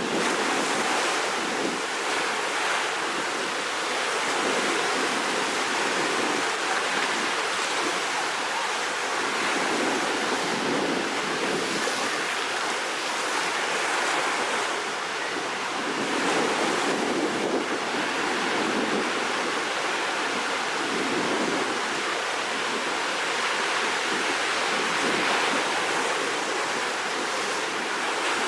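Heavy surf of a rough sea ahead of a typhoon: a steady rush of breaking waves that swells and eases every few seconds.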